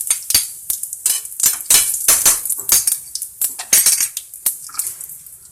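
A metal spoon clinking and scraping against metal cookware in quick, irregular strikes, thinning out towards the end.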